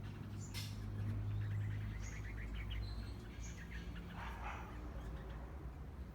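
Small garden birds giving clusters of short, high chirps, with a brief rustle a little past four seconds, over a steady low hum.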